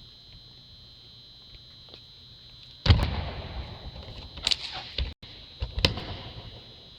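Faint steady hum, then a sudden loud bang about three seconds in, followed by a few more sharp knocks and thuds.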